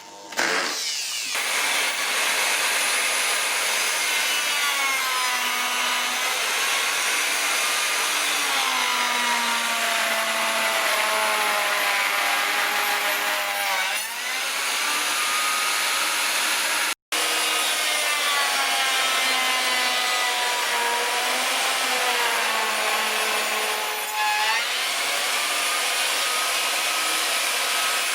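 Electric power tool running continuously while cutting or working wood, its motor pitch sagging and recovering as the load changes. The sound drops out for a split second a little past halfway.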